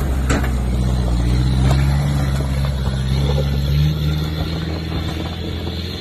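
Toyota Hilux four-wheel drive's engine pulling up a steep rocky track at low speed. The revs rise a little midway, then ease off as the vehicle moves away.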